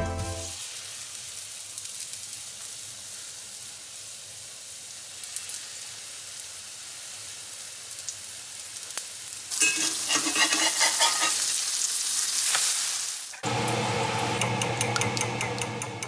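Pancake batter frying in hot oil in a cast iron skillet: a steady sizzle that gets louder about two-thirds of the way through. Background music comes in near the end.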